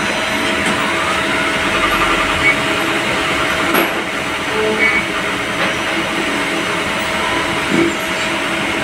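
Steady mechanical whir and hum of a CNC lathe and its workshop, with a constant mid-pitched tone and a few faint clicks.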